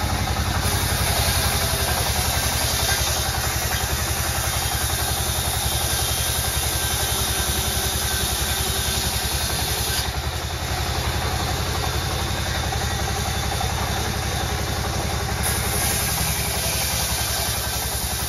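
Sawmill band saw running steadily while sawing a large timber log: a loud, constant machine drone with a fast low throb.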